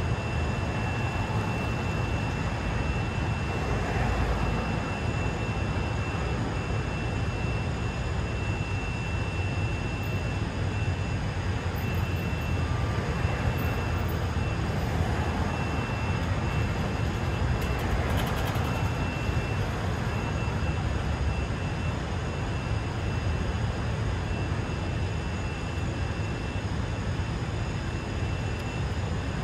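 City street traffic: a steady low rumble of engines and tyres with cars passing now and then, and a thin high whine that comes and goes.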